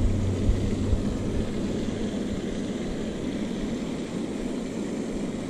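Steady rushing outdoor noise with a low rumble that fades about a second in; no distinct events.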